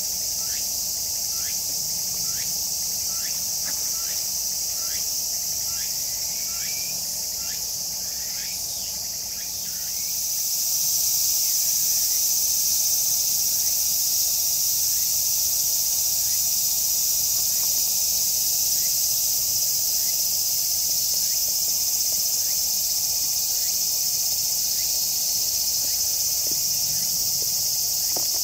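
A steady, high-pitched chorus of insects, growing louder about ten seconds in. For the first nine seconds or so, a short chirp repeats a little faster than once a second.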